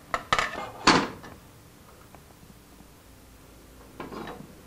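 Metal square clattering as it is set down on a wooden panel: a few sharp clacks within the first second, the last the loudest with a short ring. About four seconds in, a short scratchy stroke of a marker drawing a line along the square.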